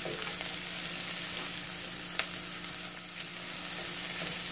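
Diced onion sizzling in avocado oil in a stainless steel pan, stirred with a wooden spoon that scrapes and clicks against the pan now and then, over a steady low hum.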